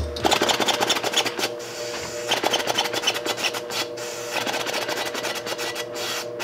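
3D-printed plastic inline-four compressed-air engine turning over, a fast irregular mechanical clatter of its pistons and valves with a sharp knock at the start. It runs poorly on low air pressure.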